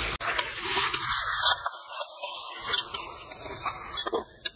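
Metal ladle scraping and knocking against a large aluminium pot as raw prawns, curd and masala are stirred together, a few short clicks. A steady hiss fills the first second, then cuts off.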